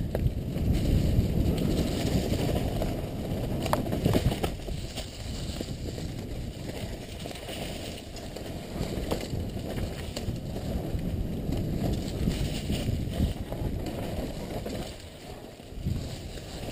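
Freeride mountain bike descending a forest trail: tyres rolling over dirt and dry leaves with a steady rumbling rush, and sharp knocks and rattles as it hits bumps. Wind noise on the helmet microphone runs through it.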